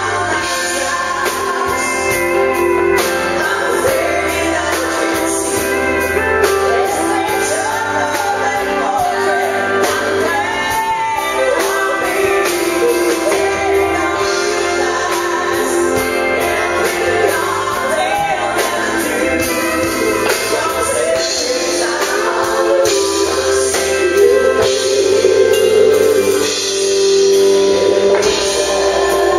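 Live country band playing: a man and a woman singing together over electric guitar and drums with a steady beat.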